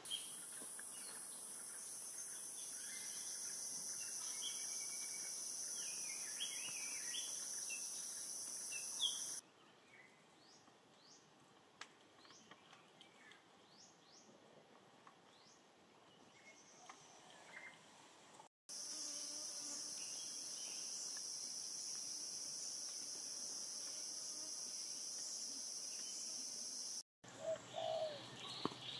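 Tropical forest insects droning in a steady, high-pitched, unbroken chorus. The drone stops suddenly about a third of the way in, giving way to a quieter stretch of short bird chirps. It comes back after a brief dropout and cuts off again near the end, where a few louder bird calls follow.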